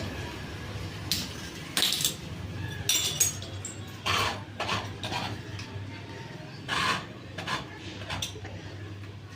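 Irregular sharp metallic clinks and clanks, about a dozen, as hard metal objects are handled and set down against each other. A steady low hum runs underneath.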